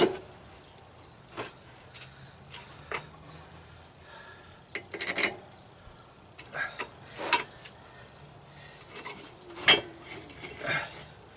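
Metal clanks, knocks and scraping as a rusty steel ATV swing arm is wrenched and pulled back by hand to free it from the transmission's drive shaft spline. About nine separate sharp knocks come at uneven gaps, the loudest near the end.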